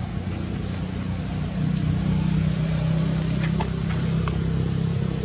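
A motor vehicle's engine running, a low steady hum that grows louder about two seconds in, with a few faint ticks over it.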